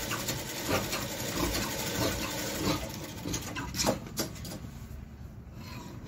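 Tailor's shears cutting through trouser cloth on a wooden cutting table, a run of crisp snips about one every two-thirds of a second, thinning out after about four seconds.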